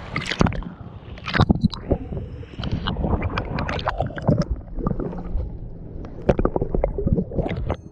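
Sea water sloshing and gurgling against a camera held at the surface and dipped underwater, with irregular splashes and clicks over a muffled low rumble.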